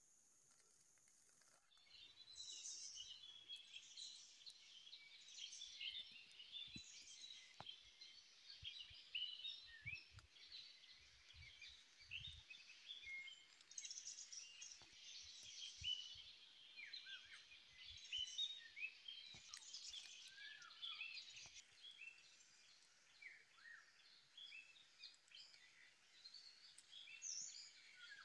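Faint chorus of wild birds, many short high chirps and twitters overlapping without pause, starting about two seconds in.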